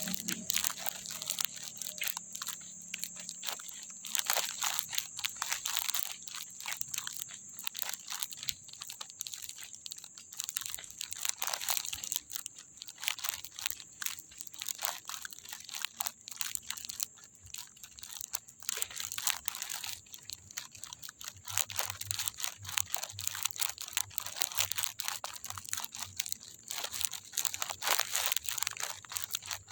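Irregular crunching and crackling clicks over a steady high-pitched whine.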